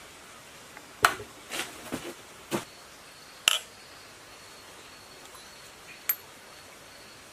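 Metal parts of a diesel engine's timing gear case clinking and knocking as it is assembled: a quick series of sharp metallic clinks in the first three and a half seconds, then one more about six seconds in.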